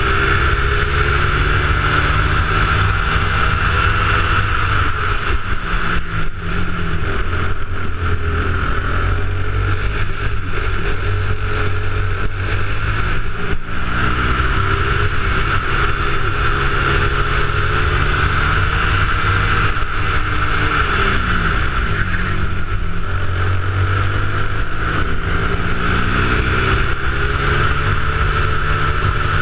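A 270cc kart engine running hard at racing speed. Its pitch drops and climbs again several times as the kart slows for bends and accelerates out, over a steady high whine.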